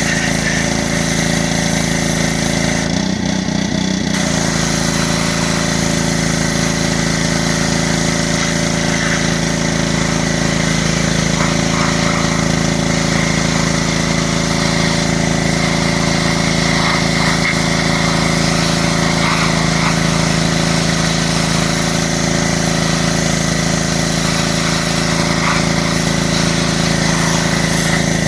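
Small-engine pressure washer running steadily under load, with the hiss of the spray over the engine note. The hiss drops out for about a second, about three seconds in, while the engine keeps running.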